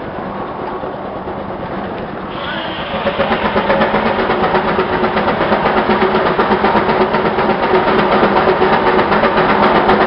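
An engine running. About two seconds in it grows louder, with a brief rising whine and a fast, even beat.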